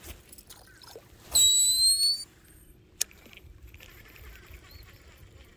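A cast with a fishing reel: the spool whirs loudly for about a second as line pays out, its pitch rising slightly, followed by a single sharp click about three seconds in. A faint steady low hum runs underneath.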